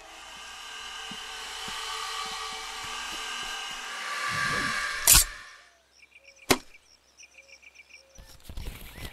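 Horror-film sound design: a noisy, droning swell builds for about five seconds and ends on a very loud sharp hit, with a second sharp click a moment later. Then it goes quiet, with short repeated high chirps like a bird's, and rustling and scraping near the end.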